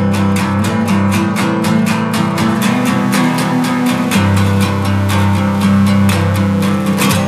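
Background music: a strummed guitar over a bass line in a quick, even rhythm, cutting off abruptly near the end.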